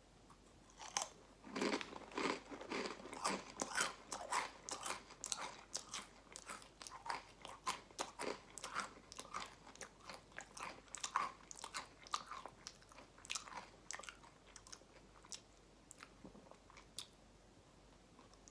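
Close chewing of Takis rolled corn tortilla chips: a run of crisp crunches starting about a second in, thinning out and stopping near the end.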